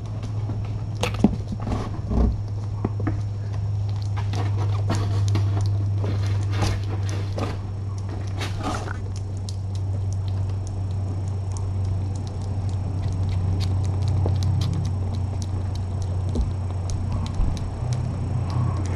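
Steady low hum, with scattered light clicks and taps from kittens eating wet food off a plate and moving about on a hard floor; the clicks are busiest in the first nine seconds.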